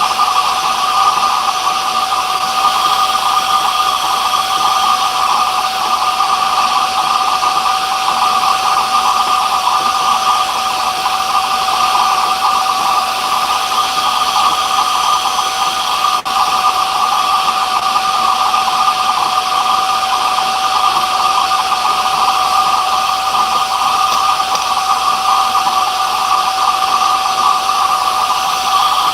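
A workshop power tool's motor running steadily without a break, a constant whine over a broad hiss.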